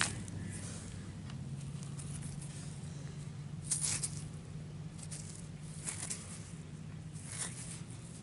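Fingers rubbing and handling a freshly dug, dirt-covered coin close to the microphone: a few short scratchy rustles over a steady low hum.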